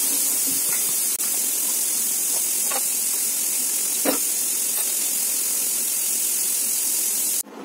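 Kitchen tap water running steadily onto dishes in the sink as they are washed, with a couple of faint clinks of crockery. The sound cuts off suddenly near the end.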